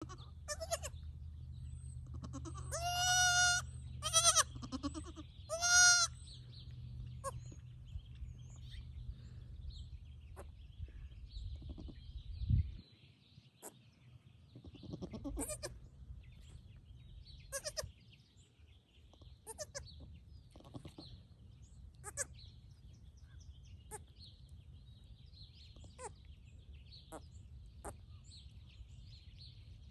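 Newborn goat kid bleating: three high, thin cries in quick succession a few seconds in, with a lower short call among them. After that only faint scattered clicks over a steady faint high hiss.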